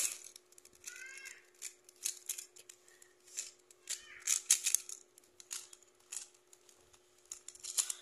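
A plastic mirror-blocks cube being turned by hand: quick, irregular clacks and scrapes as its layers turn, several a second, some louder than others.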